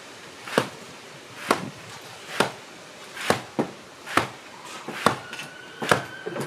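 Fists striking a wall-mounted wing chun sand bag in slow, even punches: a sharp thud about once a second, roughly eight in all.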